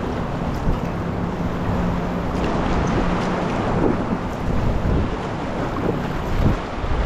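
Rushing whitewater around an inflatable packraft, with splashes from paddle strokes and wind buffeting the microphone.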